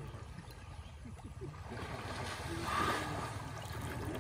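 River water sloshing and splashing as elephants swim through it, with a louder surge of splashing about two to three seconds in.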